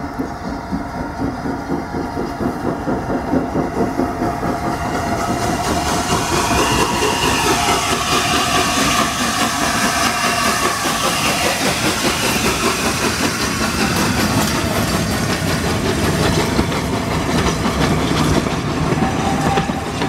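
Steam locomotive 60163 Tornado, an LNER Peppercorn A1 three-cylinder Pacific, working a train of coaches away from a station, its exhaust chuffing. It grows louder over the first several seconds as the engine draws level, then the coaches rumble and clack steadily past over the rail joints.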